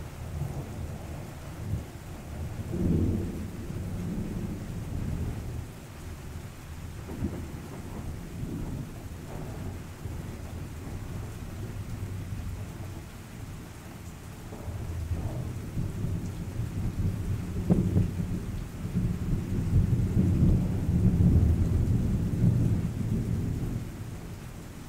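Thunder rumbling with steady rain falling. There is a rumble about three seconds in, then a longer, louder roll builds from about fifteen seconds in and eases off near the end.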